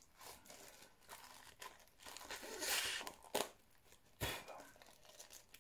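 Tough single-use plastic food packaging being crinkled and pulled open by hand, with a longer tearing rasp a little past halfway and a sharp snap soon after.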